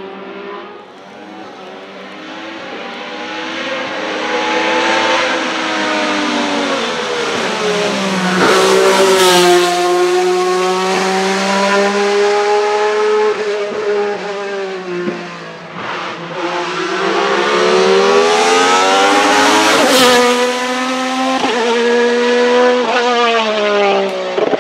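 Race car engine at full throttle, revving up through the gears with sharp drops in pitch at each upshift, the note swelling loudly as the car comes past.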